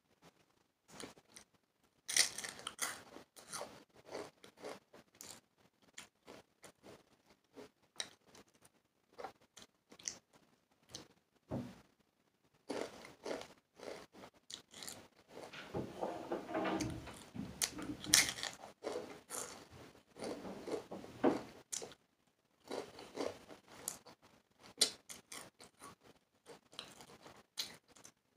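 Takis rolled tortilla chips being bitten and chewed, with crisp irregular crunches throughout, busiest in the middle stretch.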